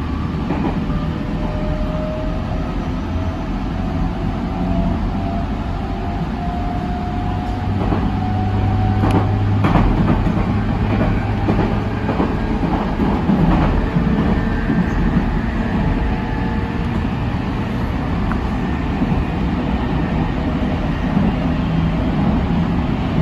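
Electric commuter train running, heard from inside the front cab: steady rumble of wheels on rail with a thin motor whine that rises slowly in pitch over the first several seconds as the train gathers speed, and a few sharp clicks as the wheels cross rail joints around ten seconds in.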